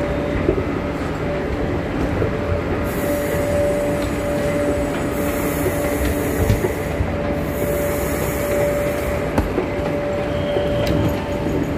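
Busy railway station ambience: a steady mechanical hum with one constant mid-pitched tone, three stretches of high hiss in the middle, and a few sharp clicks near the end.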